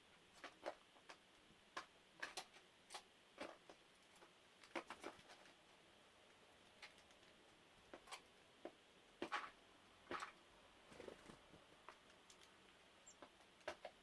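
Birds pecking at dry dog food: faint, irregular clicks and taps, a couple of them louder about nine and ten seconds in.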